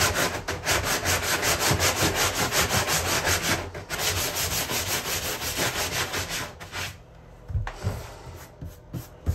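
An 80-grit sanding sponge is rubbed fast back and forth by hand over a cured fiberglass-resin repair patch on a fiberglass bathtub, about five scrubbing strokes a second. It slows and fades after about seven seconds, leaving a few light scuffs.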